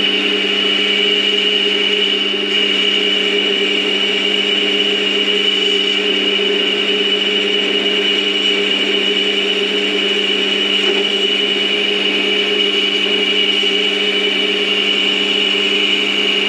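Warco WM180 mini lathe running at 650 RPM, taking a 0.5 mm deep turning cut as the carriage travels along the bar. A steady motor and gear whine carries a high steady tone above it, with no change through the cut.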